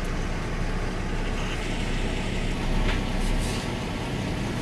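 Car engine running, heard from inside the cabin as a steady low rumble, slightly louder about three seconds in.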